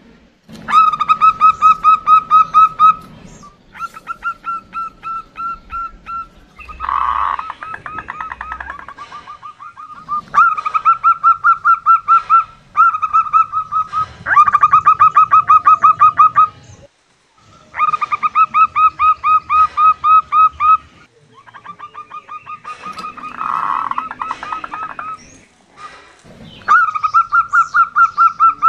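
Female zebra dove (perkutut) calling in repeated runs of quick, staccato cooing notes, several notes a second. Each run lasts two to three seconds, with short pauses between. This is a female call used to lure male zebra doves into calling.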